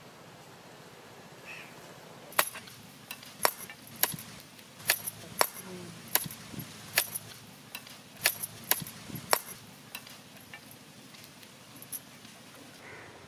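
A curved sickle-like blade chopping through crab shells: a series of sharp, irregular cracking strikes, about one or two a second. The strikes thin out to a few lighter ones near the end.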